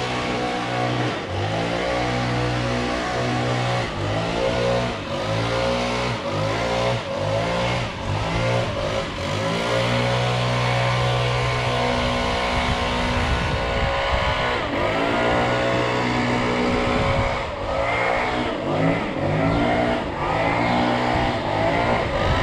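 Small two-stroke engine of a handheld lawn tool running, its throttle repeatedly eased off and opened again about once a second, so the pitch dips and rises.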